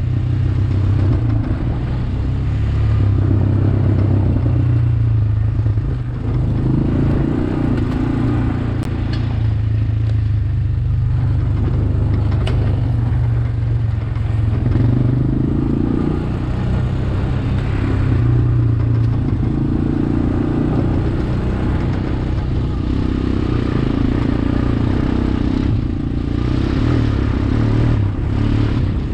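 Honda Recon ES 250 ATV's single-cylinder four-stroke engine running as the quad rides a dirt trail, its note rising and falling every few seconds with the throttle.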